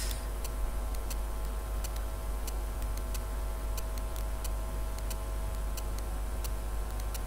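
Steady low hum with faint, sharp ticks through it, about two a second and unevenly spaced.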